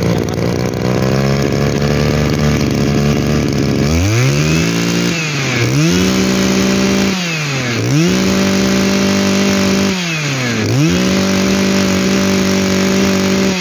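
Kioritz 2310 brushcutter's small two-stroke engine idling, then revved up by the throttle four times, each rev held for one to two seconds before dropping back to idle.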